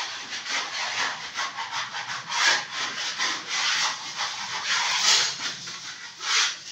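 Sandpaper rubbed by hand over a wall surface, in quick back-and-forth strokes, about four a second.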